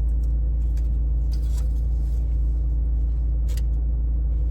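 Steady low rumble of an idling car engine heard inside the cabin, with a couple of short crackles as a foil-wrapped taco is bitten into.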